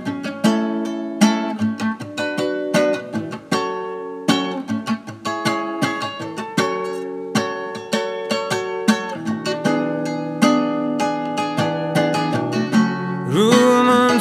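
Plucked strings playing a slow instrumental song introduction: separate picked notes over low bass notes. About a second before the end a singing voice comes in.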